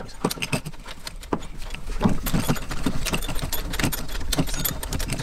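Hand ratchet clicking as it runs a bolt into a car's front control arm mounting: quick, uneven runs of light metallic clicks.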